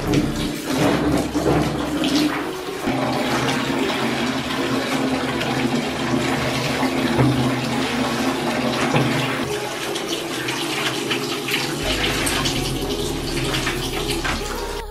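Water running and splashing, a steady rush with irregular splashes.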